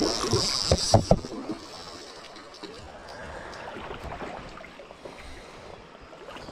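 Hooked chinook (king) salmon thrashing at the surface of a shallow river, a loud splashing with a few sharp slaps about a second in. It then drops to a quieter, steady rush.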